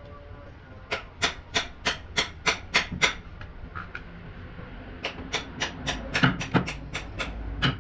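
Mallet striking a wood-carving chisel as it cuts into a carved wooden flower block: a run of about eight sharp taps, a pause of about two seconds, then about a dozen quicker taps, about four a second.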